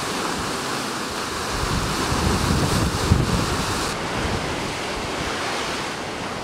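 Ocean surf washing against a rocky lava shore, a steady rushing hiss, with wind buffeting the microphone in uneven low rumbles. The high hiss eases about four seconds in.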